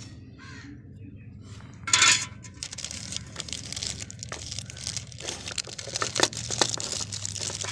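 Handling noise: a loud rustle or scrape about two seconds in, then a run of light clicks, knocks and rustling, like parts and their wrapping being handled.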